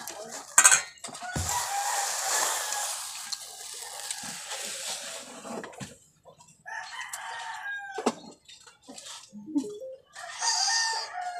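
A rooster crowing three times, the first crow long, drawn out over several seconds. A sharp knock comes less than a second in.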